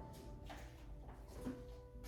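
Faint background music with a few held notes, and a couple of light clicks.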